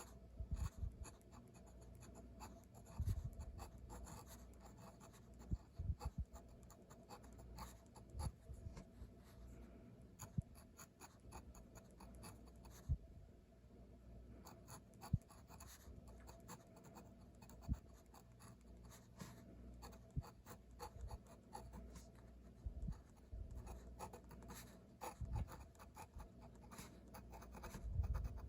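Handwriting on paper: quick, irregular scratching strokes as characters are written, with short pauses between them. Dull low thuds come in now and then underneath.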